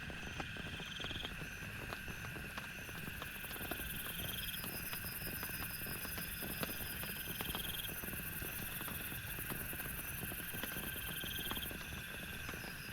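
A night chorus of frogs and insects: steady shrill calling with short trills that repeat every couple of seconds, over scattered sharp taps of dripping water and a low rumble of rain.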